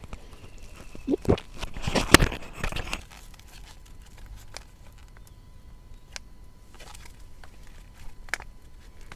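A close cluster of crunches, clicks and crinkling for about two seconds, then a few scattered clicks.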